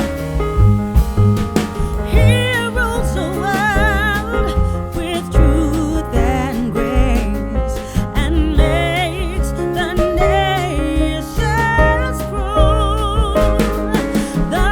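Background music: a song with a wavering, vibrato melody line, likely sung, over held chords, a bass line and a beat.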